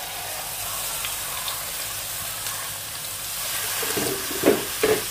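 Blended spice paste sizzling as it hits hot oil in a nonstick wok, a steady hiss of frying. Near the end come a couple of short knocks from the spatula.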